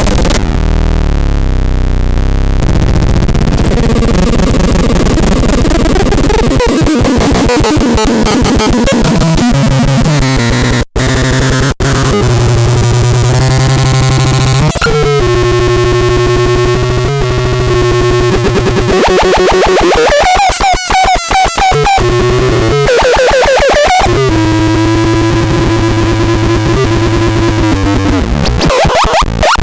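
Loud, harsh electronic synthesizer noise from the BaIOTEX 03 sound device: buzzing held tones that jump to new pitches every few seconds over a wash of noise, with some gliding pitches and two brief cutouts about eleven seconds in.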